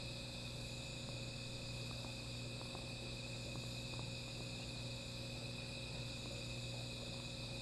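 Night insects, crickets, chirring in a steady, unbroken chorus, over a steady low hum.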